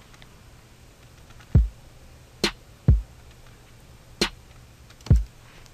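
Sparse programmed trap drum pattern playing from FL Studio's step sequencer: three deep kick hits alternating with two sharp snare hits, slow and evenly spaced.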